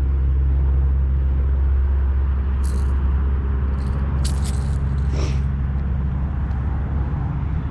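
Low steady rumble of a nearby motor vehicle, easing slightly after the first couple of seconds, with a few short sharp clicks and rattles in the middle.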